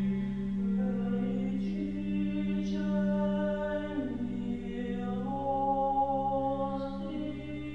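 Small church choir singing unaccompanied Orthodox chant. A low note is held steady underneath while the melody above moves from note to note.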